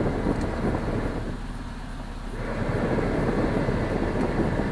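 Freshly swapped-in Chrysler 3.7 L V6 of a 2002 Jeep Liberty idling steadily, with the cabin blower running as the air conditioning is switched on. The sound dips briefly about a second and a half in, then comes back.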